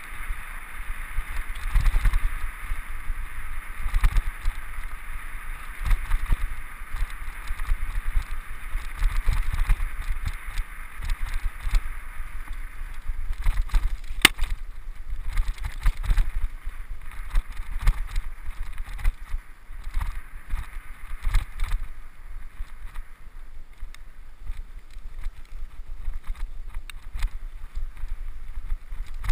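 Mountain bike rolling fast down a dirt trail, heard from a camera mounted on the bike: a constant rumble of tyres and frame jolting over bumps, with wind rushing past the microphone. One sharp click about halfway through.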